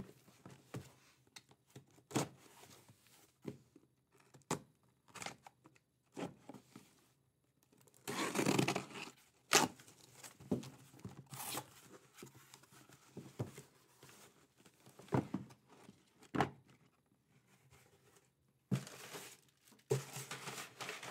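Cardboard shipping case being cut open with a box cutter and its flaps pulled apart: irregular scrapes, clicks and knocks, with a long stretch of tearing tape and cardboard about eight seconds in and more rustling near the end.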